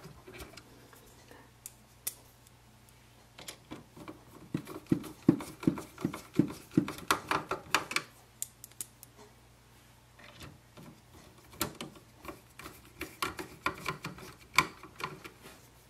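Screwdriver turning two small screws into the printhead mounting of an Epson WorkForce WF-2850 printer: two runs of quick, light clicks and scrapes, each a few seconds long, with a short pause between them.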